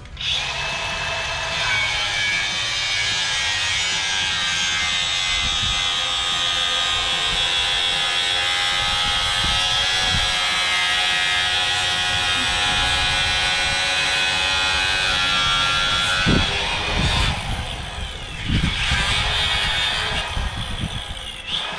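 Milwaukee angle grinder cutting into the pickup's front bumper: a loud, steady high-pitched whine that starts abruptly and wavers and dips in the last few seconds as the cut eases and bites.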